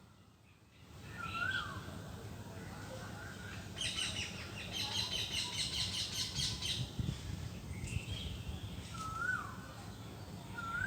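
Parrot calling in a tree: short whistled notes that rise and then fall, and in the middle a rapid run of harsh repeated notes lasting about three seconds.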